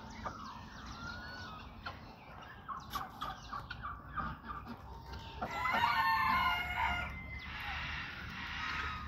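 Captive fowl, among them Indian peafowl, calling: a run of short clucking calls, then a louder bout of pitched calls about six seconds in. Wings flap in a rushing burst near the end.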